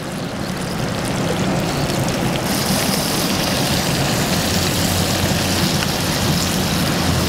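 Steady rushing of a fast river flowing over rocks, mixed with wind rumble on the microphone; a brighter hiss joins about two and a half seconds in.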